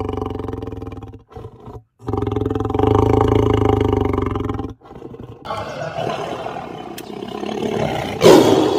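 Big cat roaring and growling in long, low, pulsing rumbles broken by short pauses, then a harsher, noisier stretch ending in a loud roar near the end.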